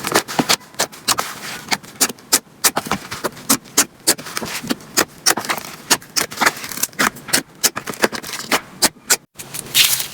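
Slime being squeezed and pressed by hand, giving a fast, irregular run of sharp clicking pops, several a second.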